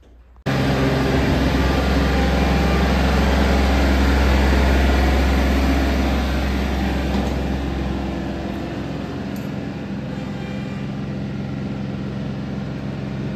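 The three-cylinder diesel engine of a John Deere 3032E compact tractor running steadily. It cuts in suddenly about half a second in and grows a little quieter after about eight seconds.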